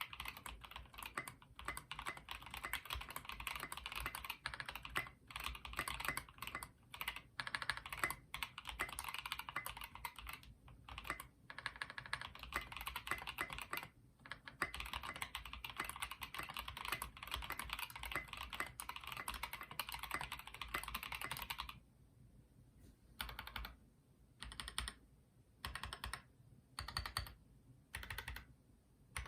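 Typing on a custom HHKB-layout mechanical keyboard with lubed Dogikon linear switches on cream stems, a polypropylene plate and tall SA keycaps: steady fast keystroke clacks. About 22 seconds in, the typing breaks into separate keystrokes about once a second.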